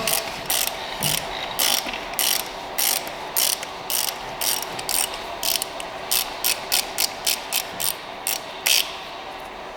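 Ratchet wrench with a 32mm socket clicking steadily, about two to three clicks a second, as it unscrews an oil filter housing cap; the clicking stops near the end.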